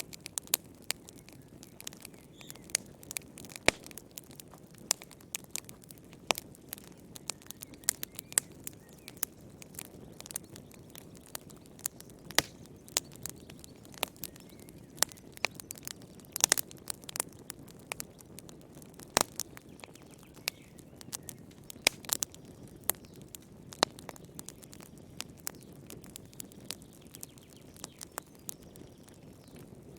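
Wood fire burning in a fireplace, crackling and popping: frequent sharp, irregular pops over a soft low rumble of flames.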